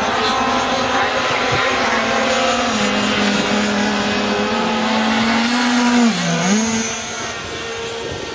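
Several small two-stroke petrol engines of racing RC boats running flat out together, their whining tones weaving against each other in pitch. The loudest engine dips in pitch briefly about six seconds in, and the whole sound eases a little in the last second or so.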